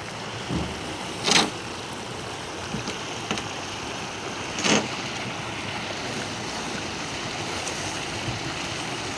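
Fast stream water rushing over rocks in a steady rush, with two brief knocks a few seconds apart.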